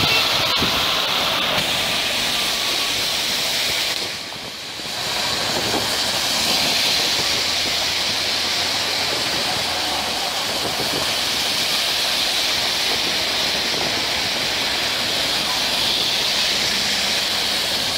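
Heavy rain falling on a city street, a steady hiss mixed with car tyres swishing over the wet road as traffic passes. The sound drops briefly about four seconds in.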